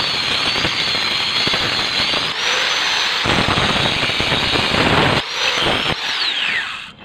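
Electric angle grinder grinding down a weld on a steel bar, a loud harsh grinding over the motor's high whine, which jumps up in pitch twice. Near the end the grinder is switched off and its whine falls away as the disc spins down.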